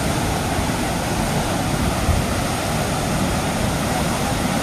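Waterfall: a river's water crashing down over rock ledges in a steady, even rush.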